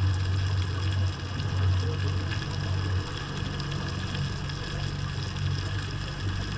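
Underwater ambience: a low droning hum that swells and fades every second or two over a steady hiss.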